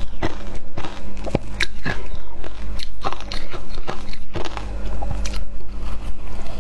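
Crushed ice dusted with matcha powder crunching as it is bitten and chewed, close to a clip-on microphone: a dense, irregular run of sharp crackles.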